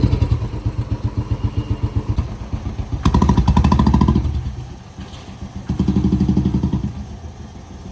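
Motorcycle engine running with an even pulsing beat, revved up twice, about three and six seconds in, then settling back to idle.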